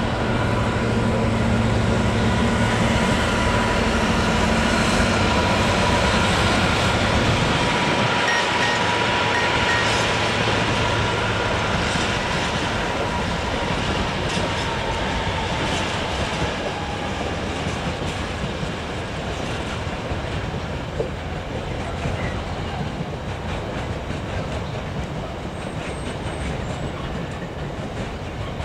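Freight train passing: a Freightliner Class 66 diesel locomotive hauling empty container flat wagons, its wheels clattering over the rail joints. A deep diesel engine hum and a thin steady whine sound over it and fade out in the first half.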